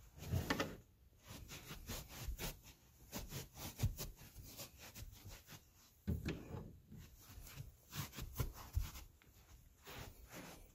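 Muffled footsteps of a person walking in socks on carpet, with scattered soft knocks and rustling.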